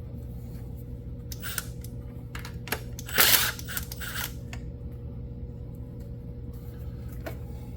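Sharp metallic clicks and clinks of hand work on a carburetor, with one louder rasping clatter about three seconds in, over a steady low hum.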